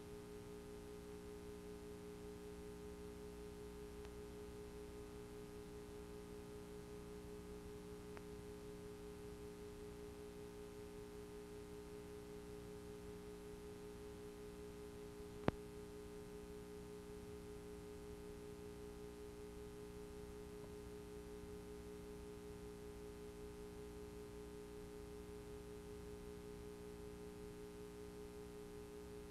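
Faint, steady electrical hum of several held tones from the VHS playback and capture chain, running under a blank black picture after the programme has ended, with a single sharp click about fifteen seconds in.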